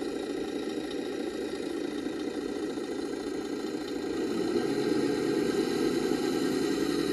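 Engine idling steadily, getting a little louder about four and a half seconds in.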